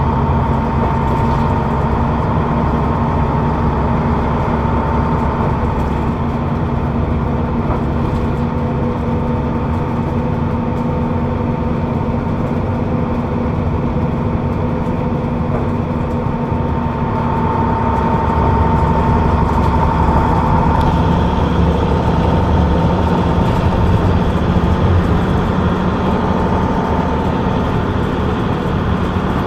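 Leyland Atlantean double-decker bus's rear-mounted Leyland 680 diesel engine running under way, heard from the back seat just ahead of the engine bay. It runs steadily with a constant hum and a higher whine, growing a little louder about two-thirds of the way through.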